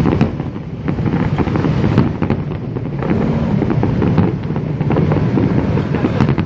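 Aerial fireworks shells bursting in quick succession: a dense run of booms with sharp cracks and crackling throughout.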